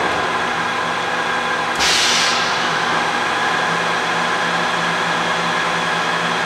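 Steady hum of industrial machinery running, with several steady low tones under a constant noise. About two seconds in, a short loud hiss lasting about half a second cuts through.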